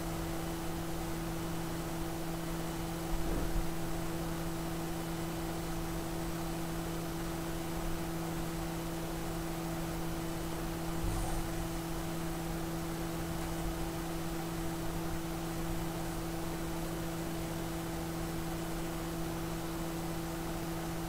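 Steady electrical hum, a low tone with its octave, over a constant hiss, with two brief low bumps about three and eleven seconds in.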